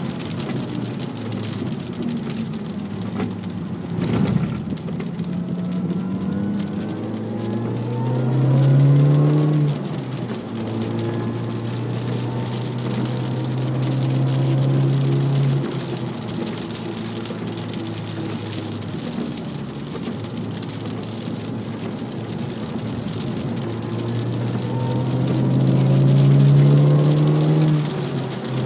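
Supercharged 1.6-litre four-cylinder of a Mini Cooper S R53 heard from inside the cabin, pulling hard on a wet track: the engine note climbs and falls back sharply three times, over a steady hiss of water spray. A single sharp knock about four seconds in.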